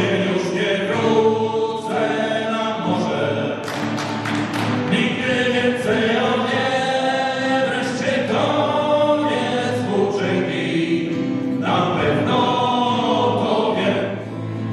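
Live sea song: several male voices singing together over acoustic guitar accompaniment.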